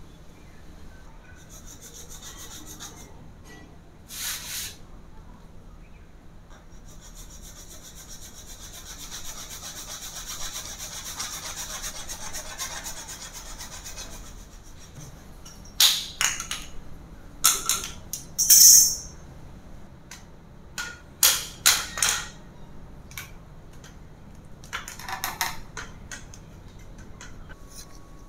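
Hacksaw rasping through PVC pipe in a steady run of strokes for several seconds, with shorter rasps before and after. Partway through comes a run of sharp clacks from pieces of plastic pipe knocking together.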